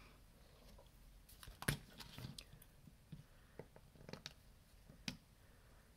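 Quiet, scattered clicks and taps, about six in all, from handling a plastic pump dispenser of rubbing alcohol with a cotton swab and press-on nails.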